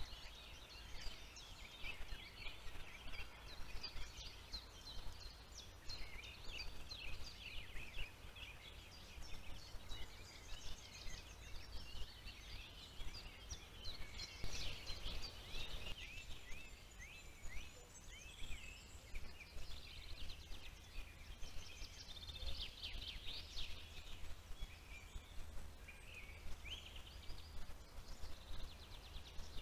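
Wild birds singing in woodland, many short overlapping chirps and trills throughout, over a low steady rumble.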